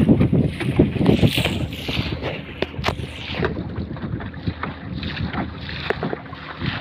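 Small motor fishing boat underway on choppy sea: water slapping and splashing irregularly against the hull, with wind buffeting the microphone.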